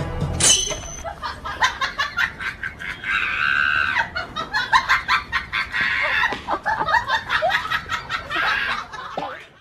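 Chickens clucking and squawking in a rapid, agitated stream of short calls, with a few longer squawks among them.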